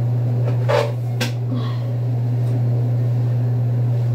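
Steady low mechanical hum, with two short knocks about a second in.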